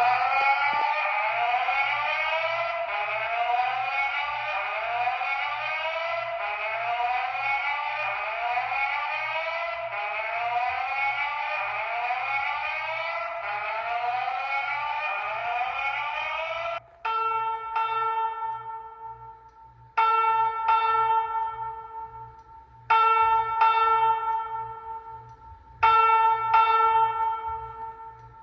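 Voice-evacuation fire alarm speaker sounding a rising whoop tone that repeats about once a second. About 17 seconds in it switches to a chime-like ringing tone struck in groups of three, a temporal-three evacuation pattern.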